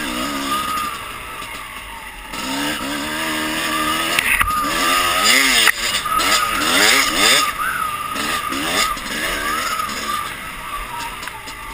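Dirt bike engine revving up and easing off again and again as the bike rides a trail, loudest about halfway through.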